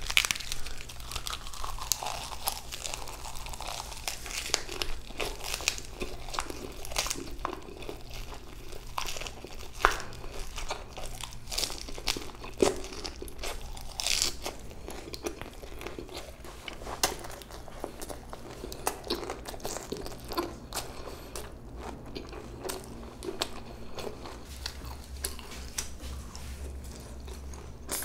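A person eating bossam: chewing and crunching bites of boiled pork wraps, with irregular crinkling and rustling as the food is handled.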